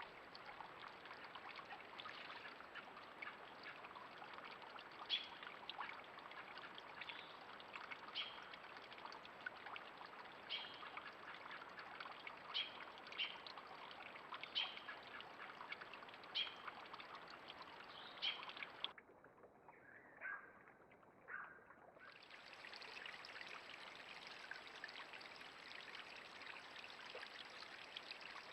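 Steady trickle of running water with a small bird calling in short chirps every second or two. Past the middle the sound turns muffled and quieter for about three seconds, then the trickle resumes.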